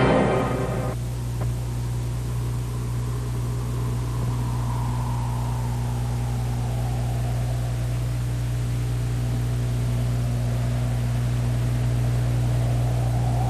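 A music cue ends about a second in, leaving a steady low electrical hum with faint hiss, the bare background noise of an old film soundtrack.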